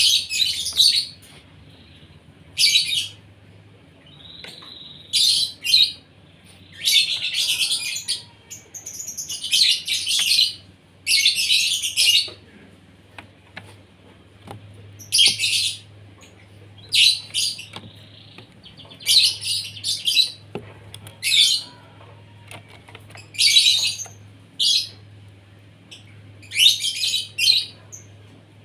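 Asian pied starling (jalak suren) calling in repeated loud, high-pitched bursts of notes, each under a second long, with short pauses of a second or two between them.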